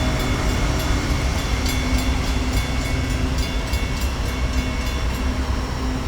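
Loaded coal train rolling slowly past: a steady low rumble of the cars' wheels on the rails, with light scattered clicking.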